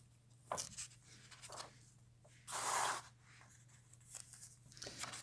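Paper rustling as the pages of a comic book are turned: several soft, short swishes, the longest about halfway through.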